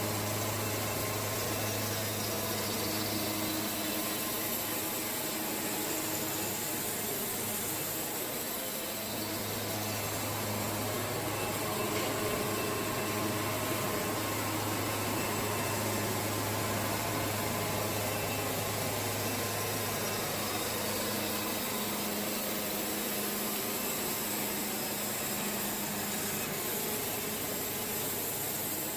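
Band sawmill running steadily while sawing a cedar log: a constant engine hum under a wide hiss of blade and wood.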